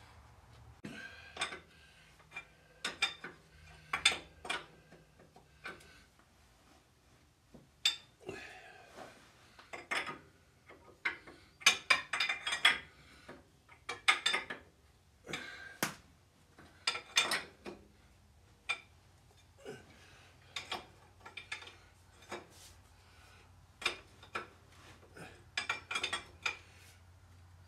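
A hand wrench snugging down the steel cylinder base nuts on a Caterpillar Sixty engine: irregular metal clinks and clicks of the wrench on the nuts and block, sometimes in quick runs.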